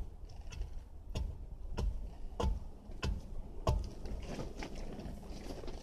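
Dirt being beaten down around the base of a wooden post with a long-handled tool: about six thuds, roughly two-thirds of a second apart, that stop a little before four seconds in.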